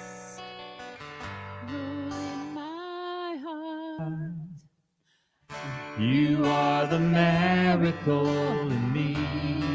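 Acoustic guitar strummed with a woman singing a worship song into a microphone. The music cuts out for about a second near the middle, then comes back louder.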